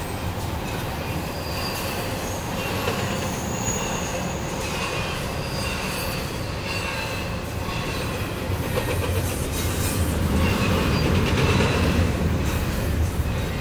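Freight train cars rolling by on jointed track: a steady low rumble of wheels on rail, with short high-pitched wheel squeals coming and going. The rumble grows louder near the end.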